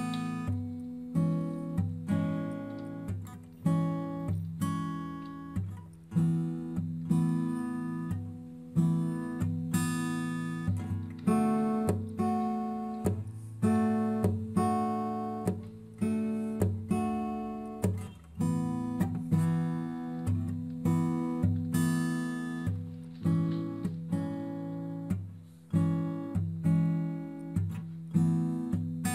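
Background music: acoustic guitar, plucked and strummed chords.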